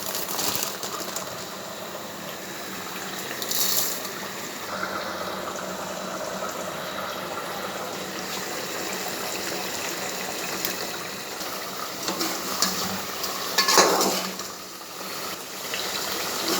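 Chicken masala bubbling in a cooking pot, with a few clinks of utensils and one louder, brief pot sound about fourteen seconds in.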